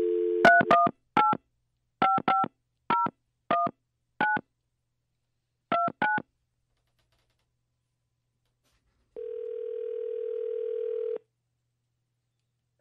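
Telephone dial tone cutting off, then ten touch-tone (DTMF) digits dialed in uneven groups. After a few seconds' pause, one two-second ringback tone as the call starts ringing through.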